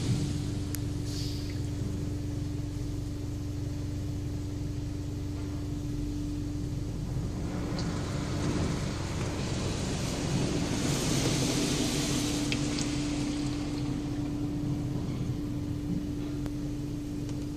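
Automatic car wash machinery running, heard from inside the car: a steady mechanical hum over a low rumble, with a rushing hiss that swells in the middle and eases off again.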